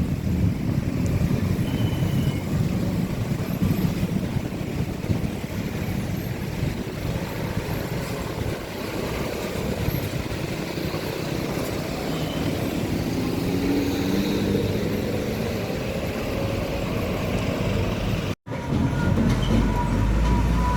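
Road traffic with heavy trucks passing: a steady low diesel engine rumble and tyre noise, with an engine note rising briefly about two-thirds through. A momentary break near the end where the recording cuts.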